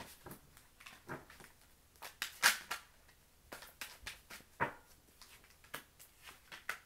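A deck of tarot cards handled in short bursts of shuffling and tapping, with the loudest burst about two and a half seconds in.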